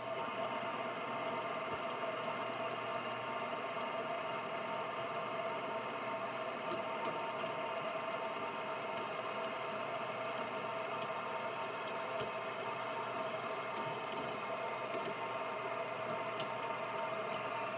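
Drill press running steadily as a twist drill just under 5/8 inch bores a dowel-pin hole through a bevel gear into a spur gear, with a few faint ticks along the way.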